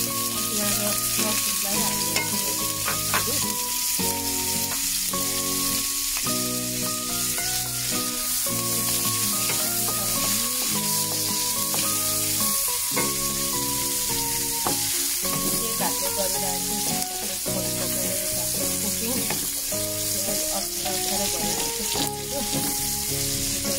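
Sliced onions frying in hot oil in a wok, with a steady sizzle, stirred through with a wooden spatula.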